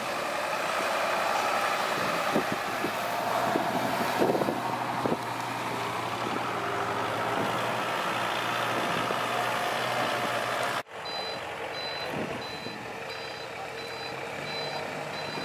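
Heavy diesel machinery running loudly, with a few sharp knocks and clatters. After an abrupt cut, a vehicle's reversing alarm beeps at an even pace over an engine running.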